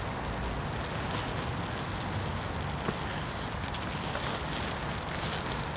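Burning mass of glued safety matches crackling steadily, with many small sharp snaps over a continuous hiss of flame.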